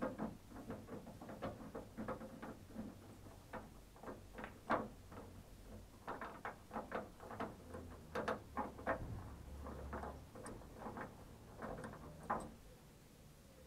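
Screwdriver working the screws out of a Mercedes-Benz 608 truck's door-pillar striker: a run of irregular small metallic clicks and scrapes that stops about a second before the end.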